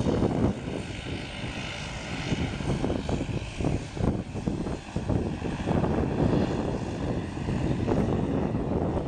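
Jet engines of an Airbus A340 climbing out at takeoff power: a heavy, crackling rumble with a fainter steady whine above it.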